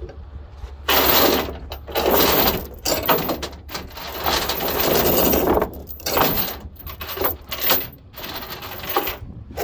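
Steel tie-down chain rattling and clinking in several runs as gloved hands gather the loose links and wrap them at a ratchet binder, taking up the slack.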